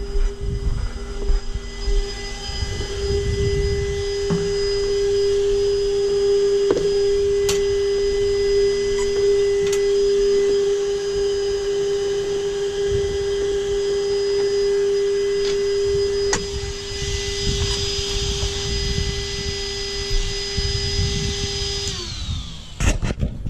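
Small electric cooling fan on the RC car's electronics whining at a steady pitch, with a few sharp clicks of handling over it. Near the end the whine slides down in pitch and stops as the fan spins down.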